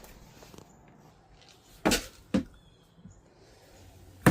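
Two short knocks about half a second apart as kitchen containers of chicken feed scraps are handled, against a quiet room.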